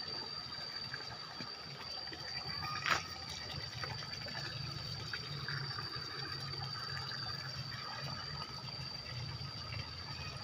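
Shallow water trickling steadily, under a constant high-pitched tone, with a single sharp click about three seconds in.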